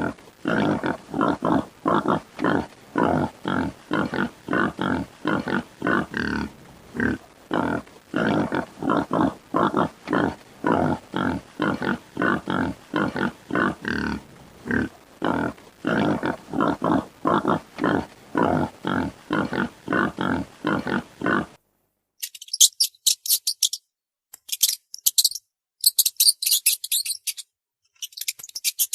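An animal, most likely a pig, grunting over and over at an even pace of about two grunts a second. About 22 seconds in, the grunting stops and rapid high-pitched ticking follows in short runs.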